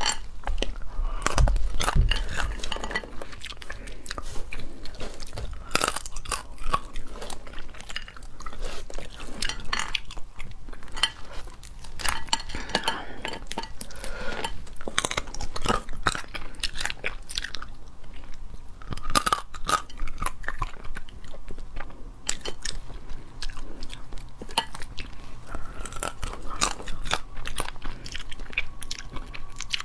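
Close-miked cracking and crunching of a cooked crustacean's shell as its legs and claws are broken apart by hand, mixed with biting and chewing of the meat in dense, irregular crackles.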